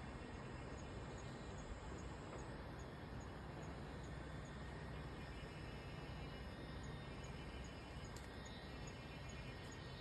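Faint, steady outdoor background noise with a low rumble and no clear event, with one sharp click about eight seconds in.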